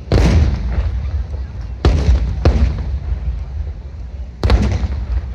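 Aerial firework shells bursting overhead: four sharp booms, the middle two close together, each trailing off in a low rumbling echo.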